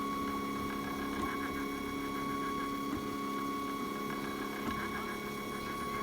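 Direct-drive filament 3D printer running mid-print, its stepper motors giving a steady whine of several held tones with a faint fluttering pattern over it as the print head lays down the bottom layer.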